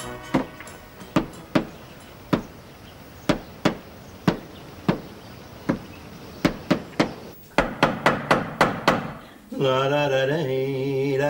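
Hammer blows against a wall, spaced unevenly at first and then coming quickly, about four a second, near the end. In the last two seconds a drawn-out, voice-like pitched sound begins.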